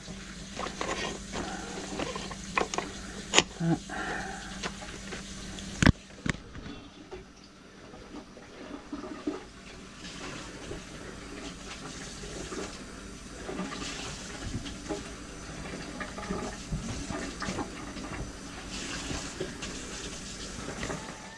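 Electric drum drain auger running in a grease-clogged kitchen sink drain line, its motor humming with clicks and knocks, then cutting out with a sharp knock about six seconds in. Water then runs steadily through the drain.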